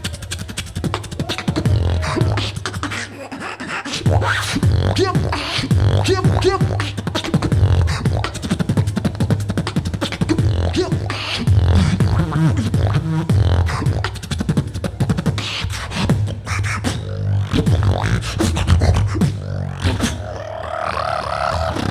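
Solo beatboxing into a handheld microphone over a PA: a fast, dense stream of mouth-made kick, snare and hi-hat clicks over a heavy bass line. Near the end it turns to sustained pitched tones.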